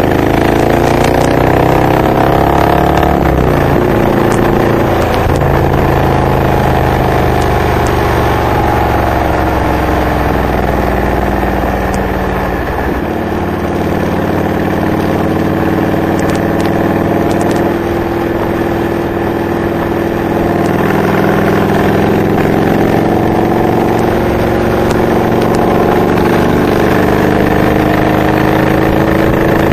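Honda VTX 1300R's V-twin running through Hard Krome K2 exhaust pipes fitted with Michael's Resonator baffles, heard from the bike while riding. The engine note drops about three seconds in, holds steady, eases briefly near the middle, then climbs slowly through the last third.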